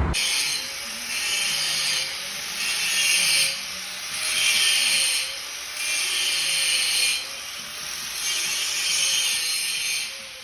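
Repeated scraping, rubbing strokes, about six, each lasting around a second with short pauses between: the Lada Vesta's rear drum brakes rubbing and squeaking each time the brake pedal is pressed, a problem known on Vestas that the service blames on the rear brake pads.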